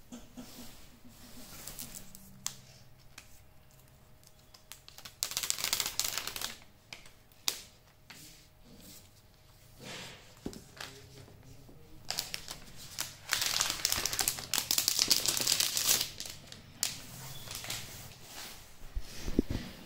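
Protective plastic wrap being peeled off a new Apple iPad, crinkling and rustling in two spells, about five seconds in and again from about twelve to sixteen seconds, with scattered clicks between. A low thump near the end.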